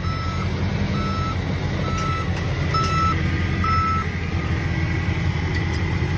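John Deere crawler dozer's backup alarm beeping about once a second, five high beeps that stop about four seconds in, over the dozer's steady diesel engine running. The dozer is in reverse.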